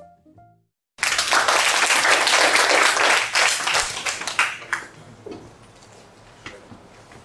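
The last notes of a jazz piano and vibraphone intro tune stop, and after a second of silence an audience applauds for about four seconds, dying away into quiet room tone with a few faint clicks.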